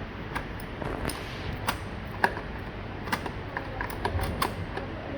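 Irregular light clicks and taps from handling a smart door lock's metal and plastic parts during installation, about a dozen of them, the sharpest a little over two seconds in.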